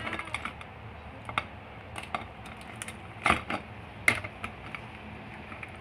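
Steamed lobster shell cracking and snapping as it is broken apart by hand, in scattered sharp clicks with two louder cracks, a little past three seconds and about four seconds in.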